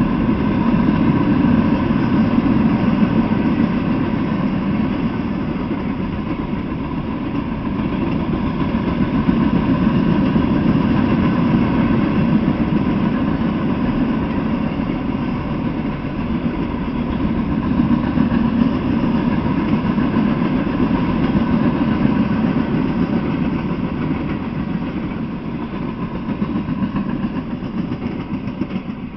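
Freight train of Norfolk Southern open-top hopper cars rolling past on the rails, a steady rumble of wheels and car bodies that fades near the end as the last cars go by.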